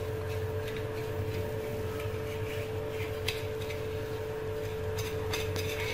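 Kitchen knife cutting through semolina makrout dough against a granite counter, with a few faint clicks and scrapes of the blade on the stone, over a steady low hum.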